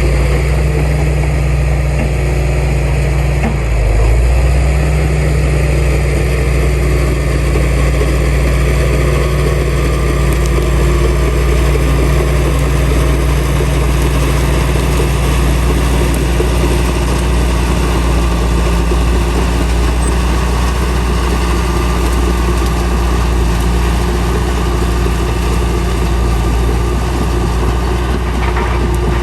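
Heavy diesel engine of earthmoving machinery running steadily, its note dipping briefly about four seconds in and then recovering.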